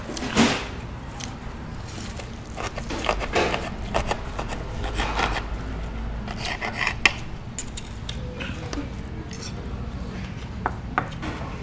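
Cutlery and dishes clinking and scraping at a meal, with several short bursts and a few sharp clicks. The loudest comes about half a second in.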